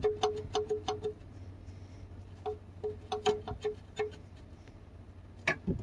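Irregular hollow plastic clicks and knocks of a 3D-printed oil filter wrench bumping against the oil filter and oil pan. The wrench is too big to go around the filter because the oil pan is in the way. The clicks come in two quick clusters, with one louder knock near the end.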